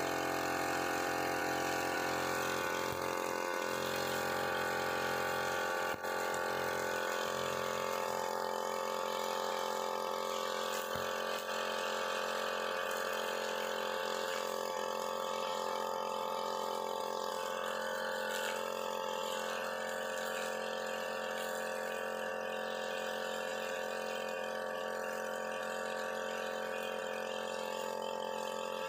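UM328 two-stroke brush cutter engine running steadily under load, its 2.4 mm nylon line spinning and cutting grass down to the soil.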